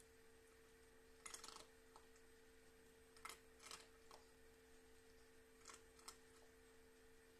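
Near silence: room tone with a faint steady hum, broken by a handful of faint short crackles.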